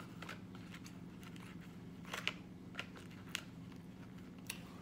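Close-up chewing of food, with a handful of short, crisp crunches and clicks scattered through, over a faint steady low hum.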